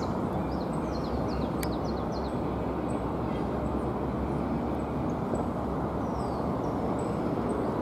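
Steady rumble of city traffic, with small birds chirping in short, falling notes, mostly in the first couple of seconds and once more near the end.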